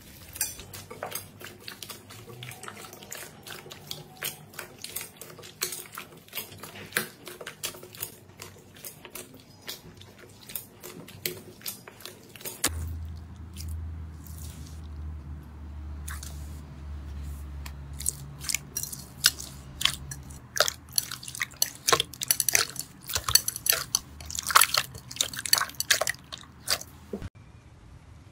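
Hands squeezing and kneading clear slime packed with foam beads, a dense run of crackly clicks and wet pops. About halfway through a low hum comes in under a hand pressing clear slime full of tiny beads, and the crackles and pops grow louder and sharper toward the end.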